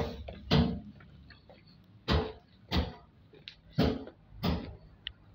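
Footsteps of a person walking through weeds and grass: about six short crunching steps, coming in pairs with pauses between.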